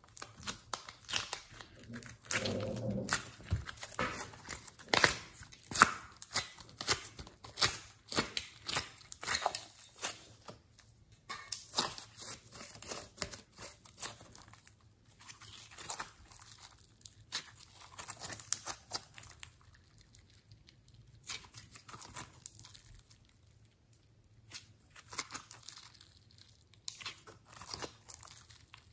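Glossy slime squeezed, folded and stretched by hand, giving off a rapid string of sticky pops and crackles that thin out for a few seconds past the middle.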